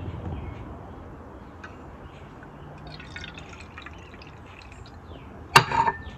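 Water poured from a glass into a small plastic birdcage water cup, trickling and splashing as the cup fills. A single sharp knock about five and a half seconds in.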